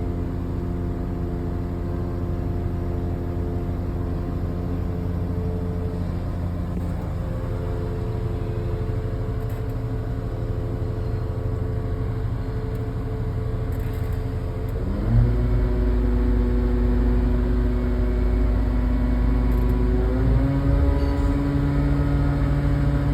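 Diesel engine of a 150-ton Zoomlion crane running at a steady idle, then revving up and getting louder about two-thirds of the way in, and rising a step higher again near the end.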